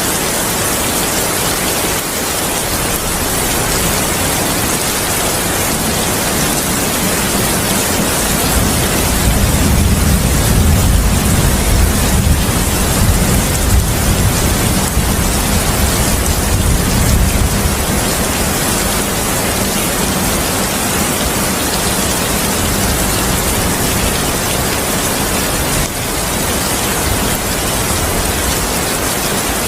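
Steady heavy rain, with a long, deep rolling rumble of thunder building from about eight seconds in and fading out around eighteen seconds.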